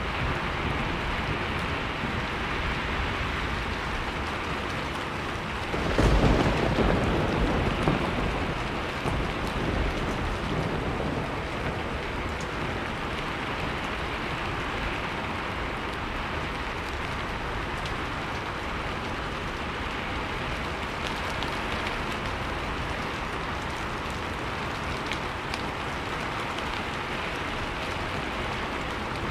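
Steady heavy rain, with a roll of thunder breaking in suddenly about six seconds in and fading away over a few seconds.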